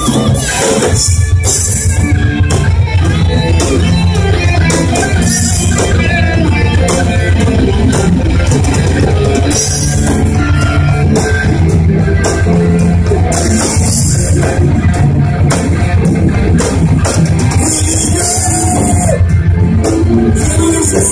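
Metalcore band playing live at full volume: distorted electric guitars over a drum kit, with a constant cymbal wash and heavy low end.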